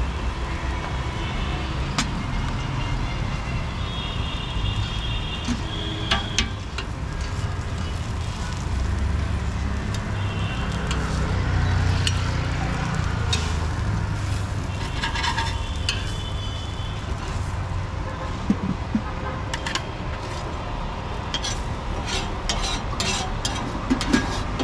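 A dosa sizzling on a flat griddle (tawa), with a metal spatula scraping and tapping on it and steel utensils and plates clinking, several sharp clinks near the end. Steady road traffic rumbles underneath.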